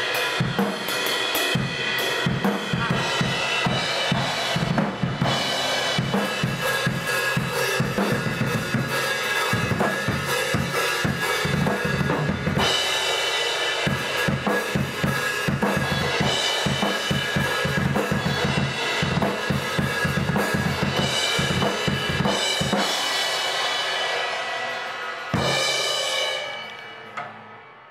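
Drum kit played hard and fast, with rapid kick and snare hits under a steady wash of cymbals. About 25 seconds in the beat stops on a final crash that rings out and fades away.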